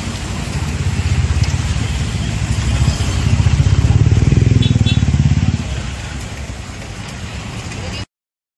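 Motorbike engine running close by in slow traffic on a flooded road. It gets louder about three seconds in, eases off after about five and a half seconds, and the sound cuts off abruptly near the end.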